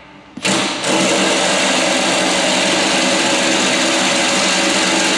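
A small motor running steadily, cutting in suddenly about half a second in.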